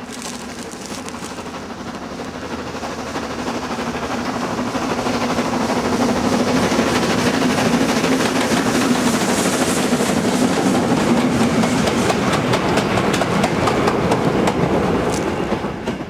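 Steam locomotive and goods wagons passing close by, growing louder over the first six seconds, with a rapid clatter of wheels over the rail joints. The sound cuts off suddenly at the end.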